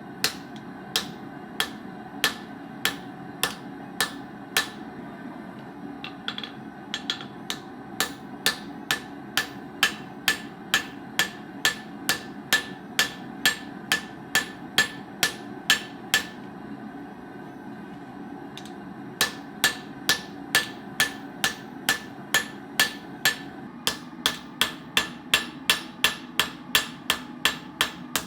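Hammer blows on metal, each with a short ringing note, about two a second. They pause for a couple of seconds past the middle, then resume faster.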